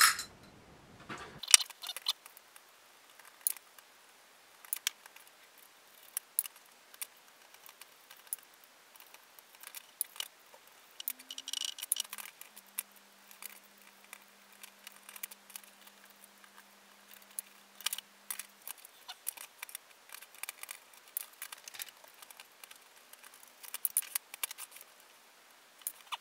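Irregular small clicks, taps and clatters of a resin cast prop pistol being unscrewed and taken apart with a small screwdriver, its hard plastic parts set down on a cutting mat.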